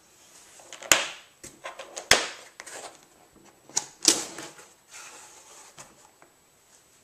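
Plastic latches on a molded foam carry case snapping open with sharp clicks about one and two seconds in, then the foam lid lifting with further clicks and a rubbing, squeaky scrape of foam on foam.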